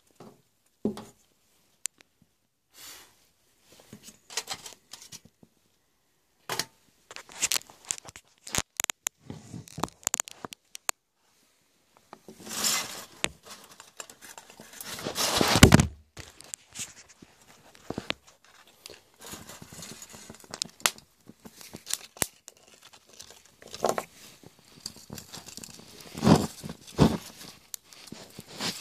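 Aluminium foil crinkling and rustling in irregular bursts, with small clicks, as the wax gasifier stove is smothered to put out its flame. The loudest rustling comes about halfway through.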